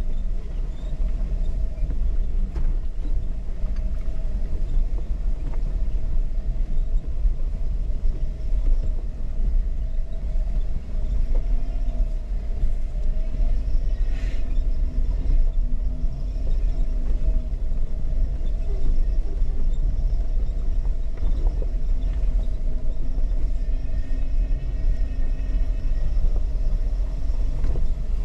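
Jeep engine and drivetrain running with a steady low rumble and hum. There is a brief sharp, high-pitched squeak about halfway through.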